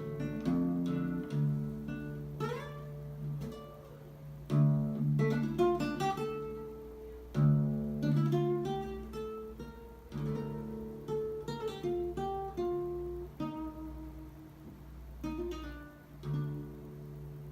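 Solo acoustic guitar playing a slow instrumental piece: plucked melody notes over ringing bass notes, with fuller chords struck every few seconds and a few sliding notes.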